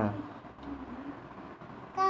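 The tail of a spoken word right at the start, then quiet room tone with a low steady hum and a brief faint murmur of voice.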